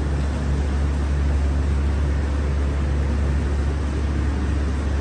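Steady low hum with an even hiss of moving air, from a paint spray booth's ventilation running.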